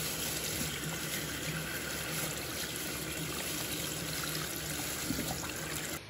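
Tap water running steadily into a stainless steel sink and splashing over a frozen block of pork fat and skin being thawed under it. The sound cuts off abruptly near the end.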